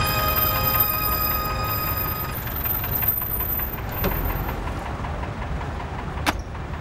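Background music dies away in the first two seconds, leaving the steady low rumble of a London black cab's engine idling amid street traffic. A single sharp knock comes near the end.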